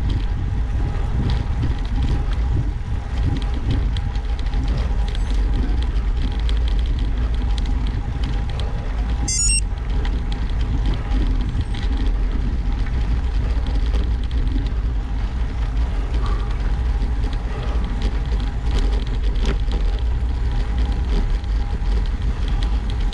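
Steady wind rushing over the microphone of a camera riding along on a road bicycle at speed, heaviest in the low rumble. About nine seconds in, a brief cluster of high-pitched chirps.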